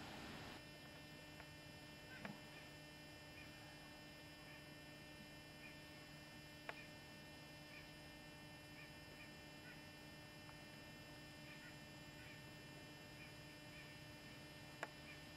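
Near silence: a steady low electrical hum, with a few faint clicks.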